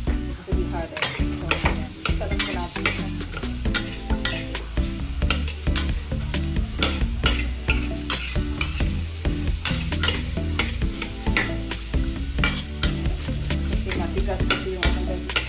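Metal spatula scraping and knocking against a stainless steel wok in quick repeated strokes, stir-frying diced carrots with garlic and shallots that sizzle in hot oil.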